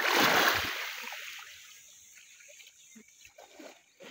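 A brief rush of splashing water that swells and fades over about a second, followed by faint scattered clicks and knocks.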